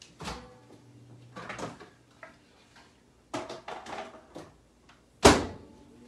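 Microwave oven being loaded: clatter and clicks, then the door shut with a loud bang about five seconds in, followed by a low steady hum.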